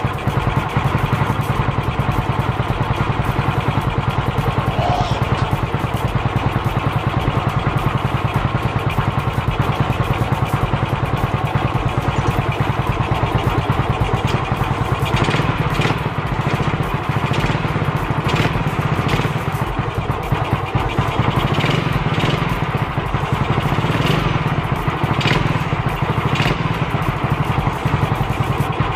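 Yamaha Mio scooter's carbureted single-cylinder four-stroke engine running steadily at idle after its clogged slow jet was cleaned, its low hum stepping up slightly about halfway through, with faint ticking in the second half.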